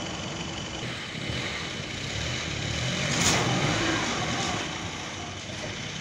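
Sawmill running with a steady engine-like drone and a constant high whine, growing louder about three seconds in and then settling back.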